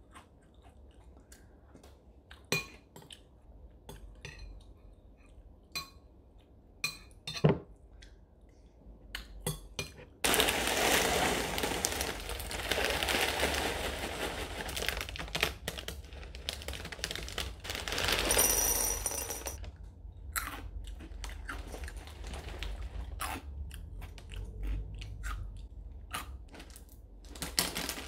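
Scattered light clicks and taps, then from about ten seconds in a clear plastic bag of ring-shaped cereal crinkling loudly as it is handled for about ten seconds, followed by more clicks and taps against ceramic bowls.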